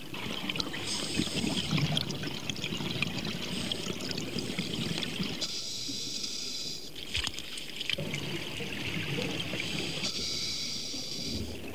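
Scuba breathing through a regulator underwater: a hiss on each inhalation alternates with the gurgle of exhaled bubbles, about three breaths, one every four to five seconds.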